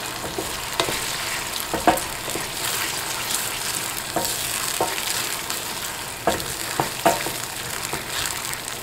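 Ketchup, garlic and capsicum sauce sizzling in a stainless steel frying pan over a flame turned up high, with a steady frying hiss. A spoon stirring it scrapes and knocks sharply against the pan about seven times.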